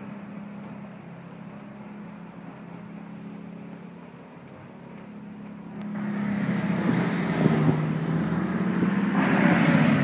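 A moving car, heard from inside: a steady low engine hum with road noise, which gets clearly louder about six seconds in as it speeds up.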